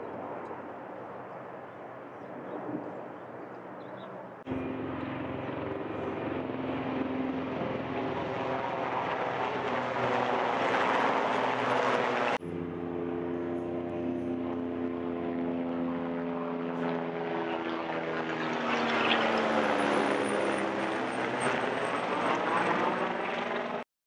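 South African Air Force Oryx, Rooivalk and Agusta helicopters flying over in formation: a steady hum of rotor and turbine tones over a rushing wash. The sound swells twice as the helicopters pass overhead, jumps abruptly in level twice where the footage is cut, and stops suddenly near the end.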